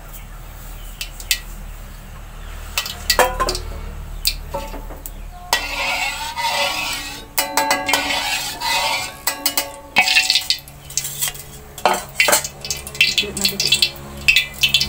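Metal utensils clanking and scraping against a steel wok of oil: a series of sharp metallic knocks, with a stretch of scraping and brief ringing in the middle and quicker clinks in the second half.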